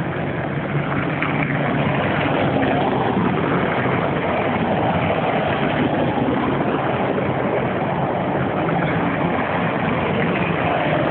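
Steady vehicle engine noise, an even rumble with no distinct events.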